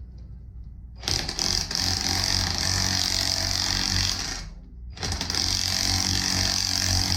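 A power tool runs in two bursts of about three seconds each, with a half-second pause between them, making a harsh, high-pitched mechanical noise, as used to undo or tighten fasteners while swapping a rear shock absorber and coil spring.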